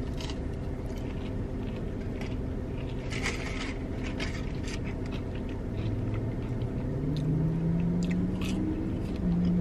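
Biting into and chewing crispy spicy fried chicken tenders, with short crunchy crackles. A steady low hum runs underneath and grows a little louder near the end.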